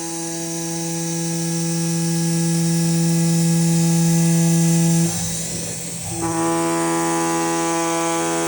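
CNC cutting machine working through 15 mm rubber gasket sheet: a steady pitched buzz that breaks into a second of rougher noise about five seconds in, then resumes at a slightly changed pitch.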